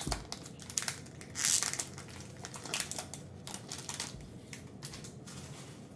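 Foil trading-card pack wrapper crinkling and crackling as it is handled and opened, in quick irregular crackles, loudest about a second and a half in and thinning out near the end.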